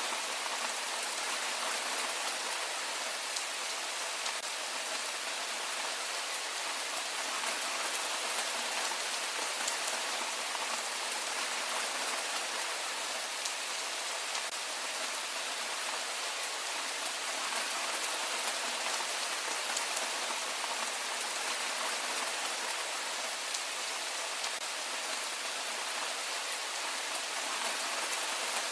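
Heavy rain falling steadily: a dense, even hiss of drops, with single drop hits ticking through it.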